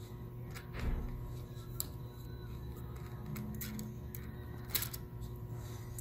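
A few faint clicks and ticks of a small magnetic Phillips screwdriver working screws out of a laptop's metal hard-drive mounting bracket: a small cluster about a second in, one near two seconds and a couple near five seconds, over a low steady hum.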